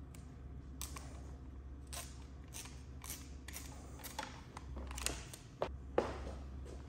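Soft rustling and a string of small, scattered clicks as hands handle a brake hose wrapped in Gorilla tape, over a low steady hum.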